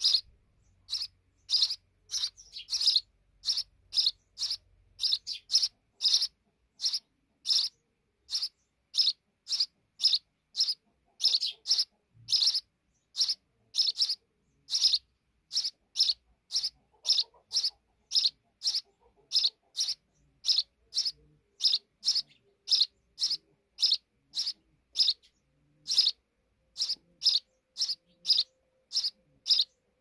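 Sparrow nestlings calling in a nest: short, high chirps repeated steadily at about two a second, the begging calls of chicks waiting to be fed.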